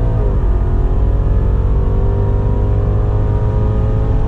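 BMW 330e xDrive Touring's 2.0-litre turbocharged four-cylinder petrol engine under hard acceleration in hybrid mode, heard from inside the cabin over a heavy low road rumble. The 8-speed automatic shifts up about a quarter second in, the engine note drops, then it climbs steadily in pitch again.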